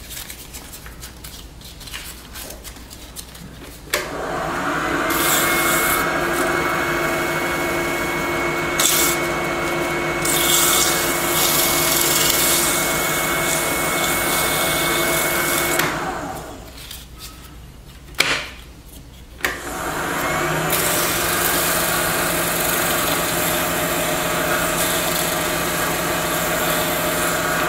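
Wood lathe running while 400-grit sandpaper is held against a spinning bocote pendant: a steady motor hum under the rasping hiss of sanding. It comes in two runs, one of about twelve seconds and one of about seven, with a short pause and a single click between them.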